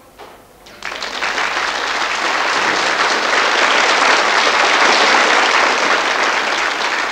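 Audience applause that starts about a second in and builds to steady, dense clapping.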